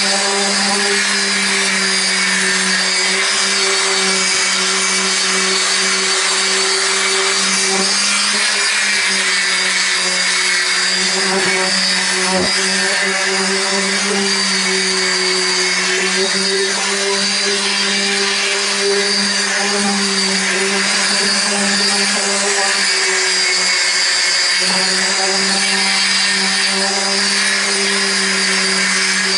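Electric random orbital sander running steadily while sanding back a painted bus roof: a constant motor hum with the rasp of the abrasive pad on the paint. The pitch sags slightly a couple of times.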